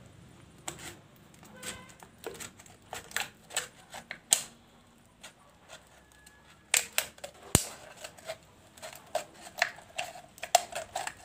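Small scissors snipping through the thin plastic wall of a soft-drink bottle: a run of sharp, irregular snips, sparse in the middle and quicker in the second half.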